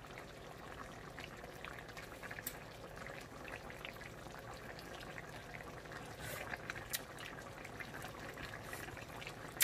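Coconut-milk sauce simmering gently in an uncovered pot of chicken wings: faint soft bubbling, with a few light clicks.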